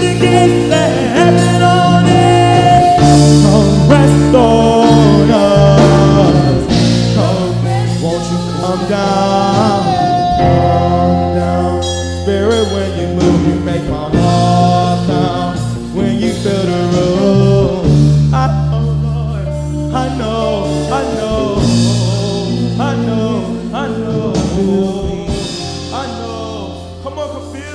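Live worship band playing a slow song with electric guitar, keyboard and drums, with singing over it; it grows quieter near the end.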